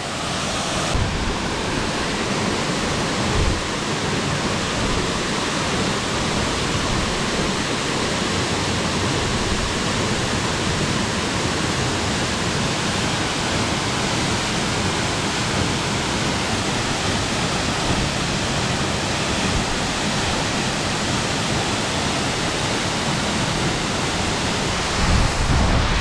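Lepcha Falls up close: a loud, steady rush of falling water. There are a few low rumbles near the end.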